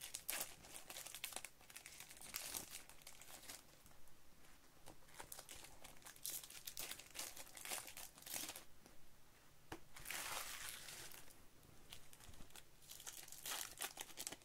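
Plastic wrapper of a Topps baseball card pack crinkling in the hands and being torn open, faint scattered crackles with a couple of longer rustles about ten seconds in and again near the end.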